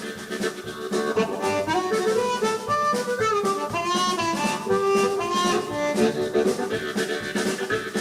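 Blues band playing live, an instrumental passage: a lead line of held and bending notes over a steady beat.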